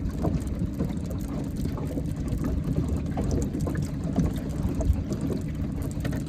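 Rain falling on a small fishing boat and the lake, with many small ticks of drops over a steady low rumble.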